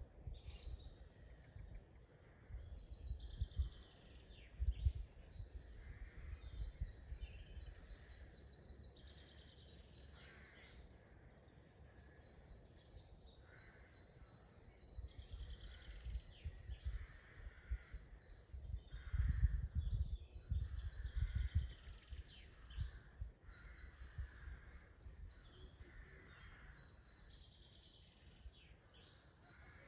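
Several woodland birds singing at once, overlapping chirps and repeated trilling phrases. A low rumbling comes and goes twice, a few seconds in and again past the middle, louder than the birdsong.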